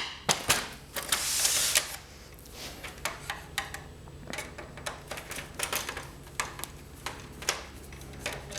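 Irregular clicks, taps and rattles of printer parts being handled and worked loose during disassembly, with a brief scraping rustle about a second in.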